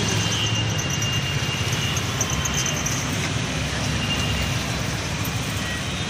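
Steady road traffic noise, with vehicle engines running and passing.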